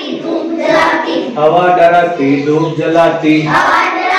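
A class of young children chanting a line of a Hindi poem together in a sing-song voice, repeating it after the teacher.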